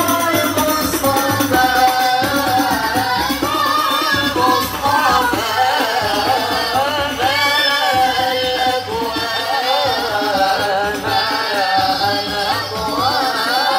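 Boys singing an Islamic sholawat qasidah through microphones, a lead voice carrying an ornamented melody over frame drums beating a steady rhythm.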